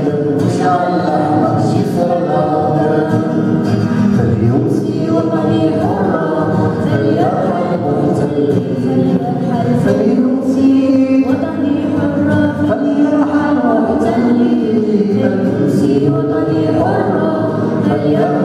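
A young girl singing a song into a microphone, accompanied by a strummed and plucked acoustic guitar, heard through a PA.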